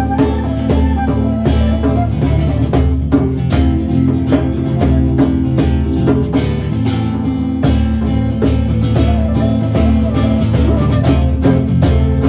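Live band music: guitar and plucked strings playing over a steady bass line, with a regular beat.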